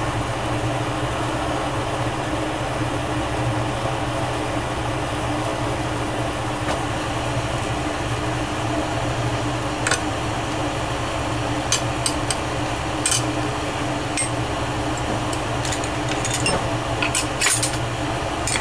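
Glassblowing bench torch burning steadily: a continuous flame rush with a low hum underneath. A few short sharp clicks come in the second half.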